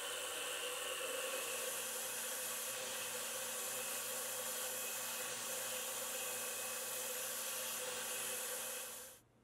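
CNC milling machine running while drilling into an aluminium part, with a steady hiss from its coolant spray. The sound cuts off abruptly near the end.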